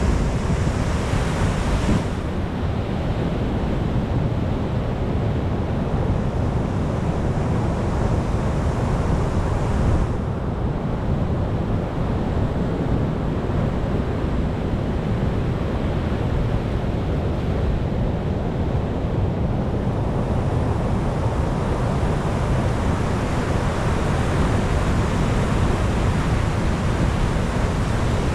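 Pacific Ocean waves breaking on rocks: a continuous wash of surf, heaviest in the low end.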